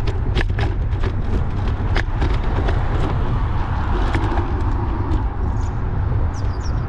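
Wind buffeting the microphone of a camera riding along on a bike, a steady heavy rumble, with scattered sharp clicks and rattles throughout and a few short high chirps near the end.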